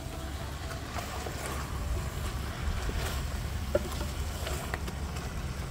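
Steady low rumble of wind on the microphone. Under it, a wooden spoon stirs chicken curry in a large pot over a wood fire, with a light knock of the spoon against the pot about four seconds in.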